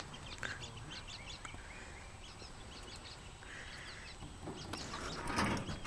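Faint outdoor birdsong: many short chirps and calls over a steady low rumble, with a brief louder rustle near the end.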